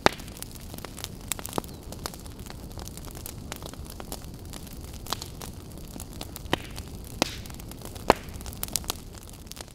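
Fire burning: a steady low rumble with irregular sharp crackling pops scattered through it.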